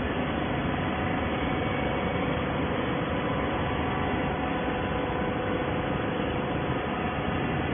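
Automatic horizontal baler running: a steady machine hum and hiss with a faint steady whine, no strokes or knocks standing out.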